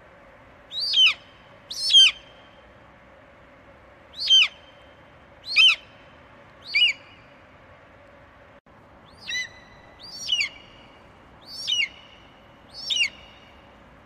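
Budgerigars giving short chirping calls, each sliding down in pitch, nine in all at intervals of a second or so, over a faint steady hum.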